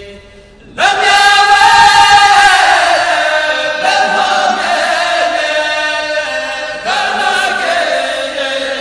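Voices chanting a khassida, an Arabic Sufi devotional poem, in long sustained melodic lines. A loud new phrase comes in about a second in, and further lines begin near four and seven seconds.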